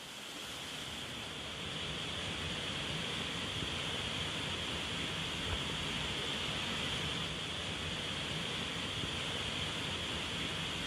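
Small forest waterfall splashing and rushing steadily, fading in over the first couple of seconds.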